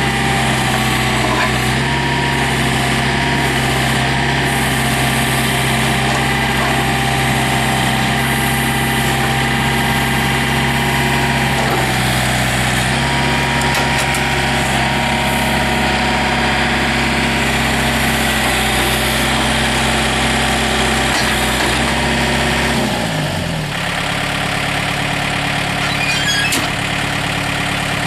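Yanmar diesel engine of a John Deere 110 tractor loader backhoe running steadily, then slowing to a lower idle about three-quarters of the way through as the throttle is brought back.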